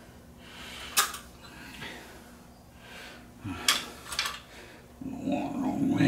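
A few sharp clicks of wires and Wago lever connectors being handled as wires are pushed into them. Near the end comes a short breathy grunt from the man working.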